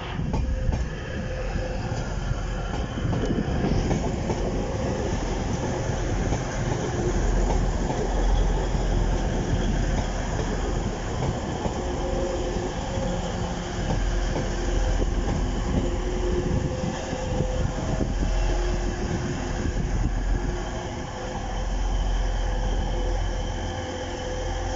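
Two coupled Class 185 diesel multiple units passing slowly, their underfloor diesel engines running, with wheels knocking over the rails and a faint steady whine.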